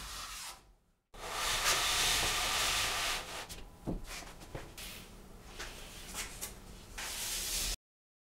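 Steel drywall knife scraping and spreading wet joint compound over a drywall joint: a steady scraping hiss for about two seconds, then softer rubbing strokes with a few light clicks.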